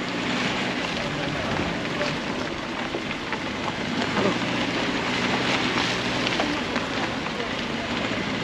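Subaru Crosstrek driving over a rough off-road track, heard with a steady engine hum under a constant rushing noise.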